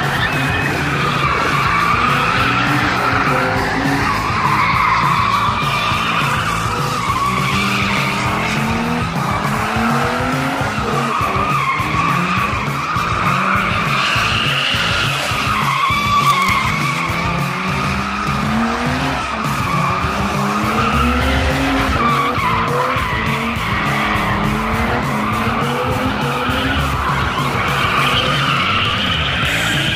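A drift car sliding around a cone course: continuous tyre squeal that wavers in pitch, over the engine revving up and falling back again and again.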